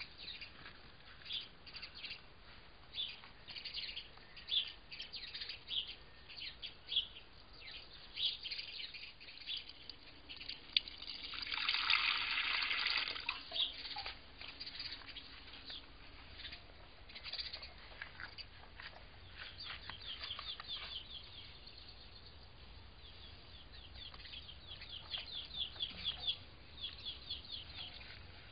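Small birds chirping in short, separate calls, with a quicker run of chirps near the end. About twelve seconds in, a burst of hissing noise lasts about two seconds.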